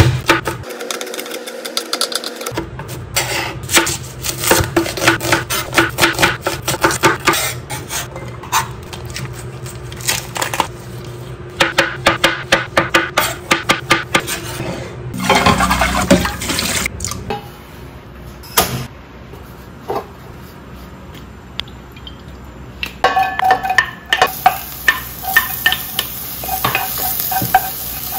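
Chef's knife chopping on a plastic cutting board in long runs of quick, steady knocks. Near the end, garlic and onion start sizzling in a pot as a wooden spoon stirs and taps against it.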